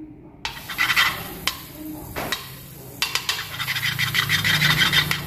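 A spoonful of butter sizzling and crackling as it melts in a hot aluminium wok, with a metal spoon scraping and rubbing it across the bottom of the pan. The sizzle starts about half a second in and becomes steadier and denser from about three seconds in.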